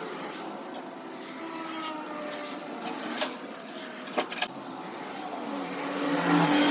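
A motor running steadily, with a few sharp clicks about three and four seconds in; a tone rises and the sound grows louder near the end.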